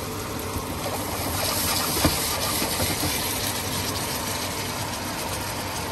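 Sauce sizzling in a hot pan with chicken: a steady hiss that grows brighter a second or two in, with a single knock about two seconds in.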